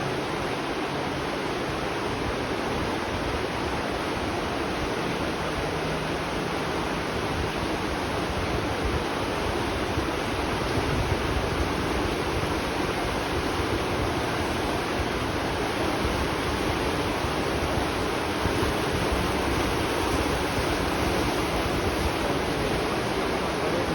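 Spring water flowing steadily, a constant even rushing noise.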